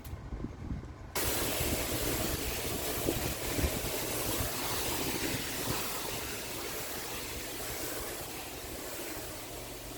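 Engine-driven pressure washer running with a low hum. About a second in the lance is triggered and a loud, steady hiss of high-pressure water spray starts, easing slightly toward the end.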